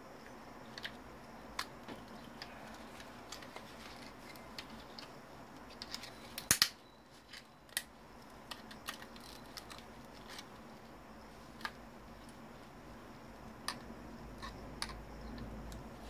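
Scattered sharp clicks and snaps of hand tools and plastic and metal parts as an old Samsung computer monitor is being taken apart. The loudest is a quick cluster of snaps about six and a half seconds in.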